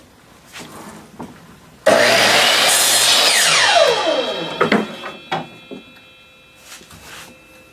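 Mitre saw motor starting abruptly about two seconds in and its blade cutting through a piece of wood, then the trigger released and the motor spinning down with a steeply falling whine that fades out. A few light knocks of wood being handled before and after the cut.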